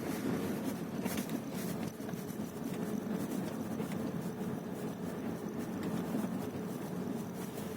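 Creaking, crackling clicks from the accelerator pedal of a Volkswagen Passat CC 2.0 TSI as the gas pedal is pressed and released, over a steady low hum. A cluster of louder clicks comes about a second in. The cause of the creak is unknown to the owner.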